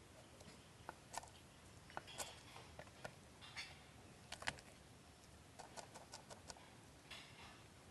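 Faint knife taps on a cutting board: scattered single chops, then a quick run of about six near the end, as garlic and chili are chopped.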